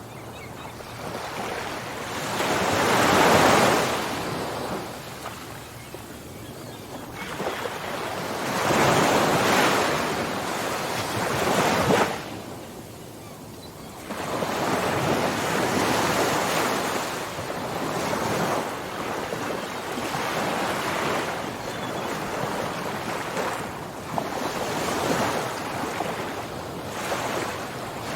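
Ocean surf: waves breaking and washing in, the hiss swelling and easing every few seconds.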